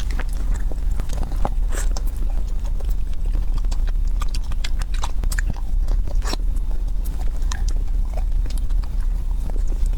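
Close-miked eating: chewing, biting and wet mouth clicks, irregular and continuous, over a steady low hum.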